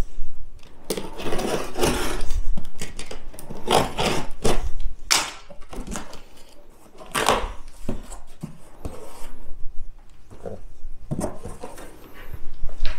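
Cardboard shipping box being opened by hand: packing tape ripped off and cardboard flaps scraped and handled, in irregular rasps and rustles.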